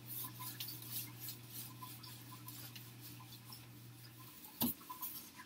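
Whiteboard being wiped clean with a dry-erase eraser: a run of faint, quick rubbing strokes. A steady low hum runs underneath until about four seconds in, and a single louder knock comes near the end.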